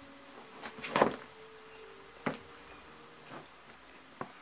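Several sharp knocks and clicks: a cluster about a second in is the loudest, then single ones at roughly one-second intervals after it.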